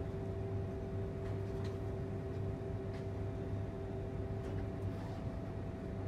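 Steady electrical hum inside a Shanghai Transrapid maglev car standing still at the station, with two steady tones over a low drone and a few faint ticks.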